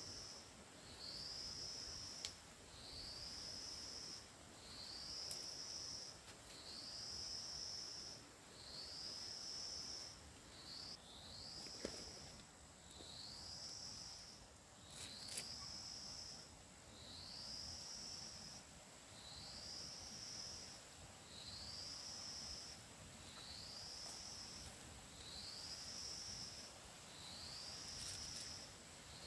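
An insect calling in a steady rhythm: one short rising note about every second and a half to two seconds, over a faint, steady high hum. A few faint clicks sound now and then.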